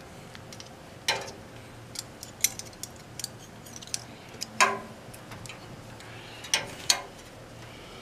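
Scattered light metallic clicks and taps as a TXV sensing bulb, its capillary tube and copper tubing are handled and fitted onto a suction line, about eight in all, with the sharpest near the middle and in a close pair near the end. A faint steady low hum runs underneath.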